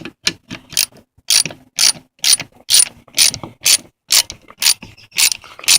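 Ratchet wrench clicking in quick back-and-forth strokes, about two a second, running a bolt down with a 13 mm socket on a long extension.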